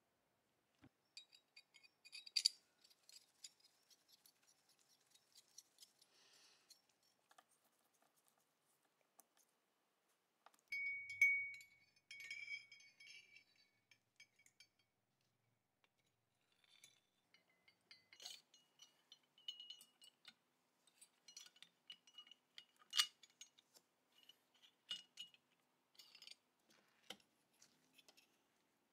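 Small steel parts of a Remington .22 pump-action rifle clicking and clinking against each other as they are fitted together by hand. The clicks are sparse, with a few brief ringing metallic clinks, the sharpest about 11 seconds in and again near 23 seconds.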